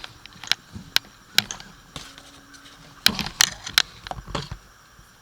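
Ratchet wrench with an Allen socket clicking and metal tools clinking in separate sharp clicks while a bolt on the motorcycle's exhaust is loosened. A few single clicks come first, then a quick cluster about three seconds in.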